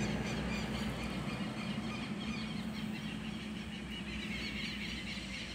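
A passing car: a steady low engine hum that slowly fades away.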